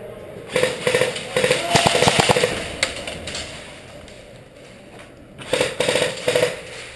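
Airsoft guns firing in rapid bursts: a long string of quick pops early on, then a shorter burst about five and a half seconds in.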